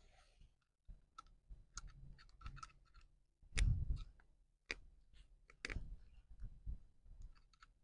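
Screwdriver working the screw of a copper earth rod clamp to fasten the earth wire: faint scattered metal clicks and scraping, with a louder knock a little past halfway.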